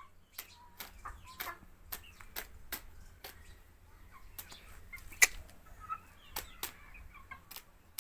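Young Aseel hen chick (parrot-beak type) making faint short calls, amid a run of many sharp clicks and taps. The loudest click comes about five seconds in.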